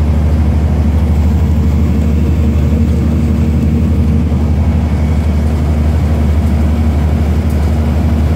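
Bus engine and road noise heard from inside the cabin while cruising on a highway: a loud, steady low drone.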